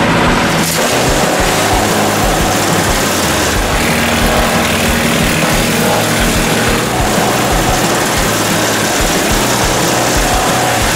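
Wood chipper and the engine driving it running, loud and steady.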